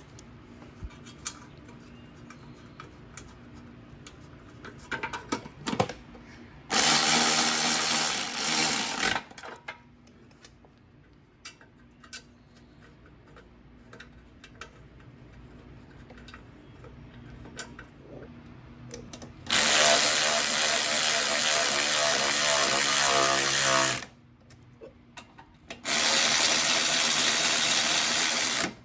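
Power drill/driver running in three bursts, the middle one longest, driving bolts down into the mower engine, with small clicks of parts being handled between the bursts.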